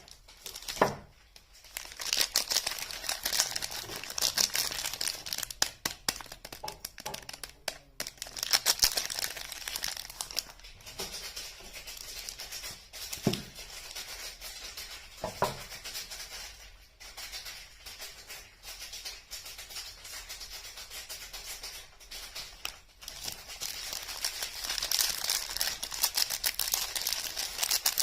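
Soap packaging being unwrapped by hand: paper and plastic wrapping crinkling and tearing in a dense run of small crackles, with a few short squeaks.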